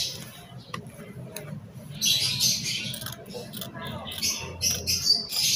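Cloth rustling as fabric is handled and moved about, with a few sharp clicks. The rustling is loudest about two seconds in and again near the end.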